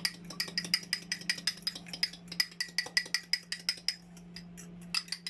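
A fork beating eggs in a jug, clinking rapidly against the side with a ringing tone, about seven strokes a second, easing off near the end. A steady low hum runs underneath.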